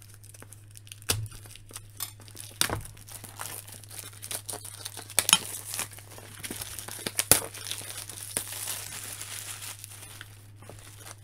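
Plastic shrink wrap being torn and peeled off a cardboard box by hand: irregular crinkling and crackling with sharp snaps, the loudest about five and seven seconds in.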